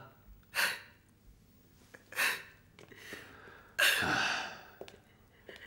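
A woman sobbing, in about four gasping, breathy sobs. The last, about four seconds in, is the longest and loudest.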